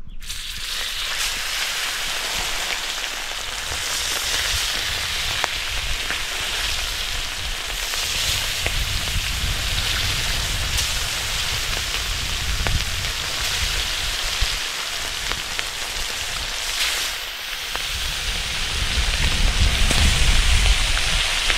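Small mullet frying in hot oil in a plow-disc pan: a steady sizzle flecked with crackles and pops. Low wind rumble on the microphone builds near the end.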